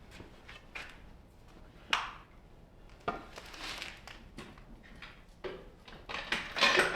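A few light knocks and clattering, the sharpest about two seconds in, with more handling noise near the end.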